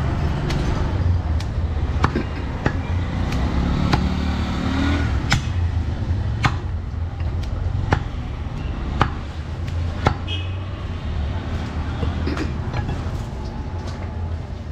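Heavy cleaver chopping goat meat and bone on a wooden chopping block: a series of sharp knocks at uneven intervals, roughly one a second, stopping near the end. A steady low background rumble runs underneath.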